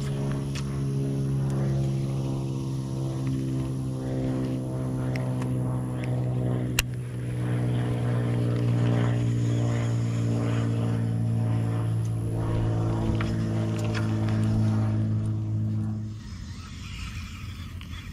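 A motor engine running steadily, a low hum with overtones that holds its pitch, with a few sharp clicks over it, the loudest about halfway through. The engine sound stops abruptly about sixteen seconds in.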